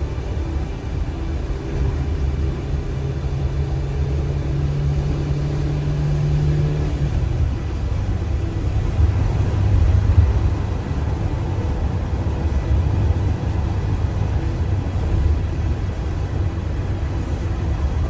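Car driving along a road: a steady low rumble of tyres and engine, with an engine hum that rises slowly in pitch and then drops away about seven seconds in.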